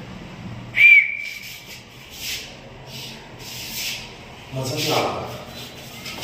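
A person doing push-ups on a tiled floor, then standing and rubbing his palms together: a brief high squeak about a second in is the loudest sound, followed by several short rubbing swishes about a second and a half apart.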